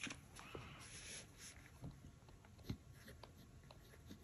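Near silence with a few faint ticks, one slightly louder just under three seconds in, as a fine-nibbed TWSBI ECO fountain pen is brought to Tomoe River paper and starts writing near the end.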